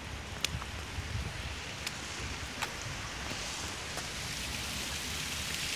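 Footsteps on wet, slushy paving stones over a steady hiss that grows a little louder toward the end, with a few sharp clicks.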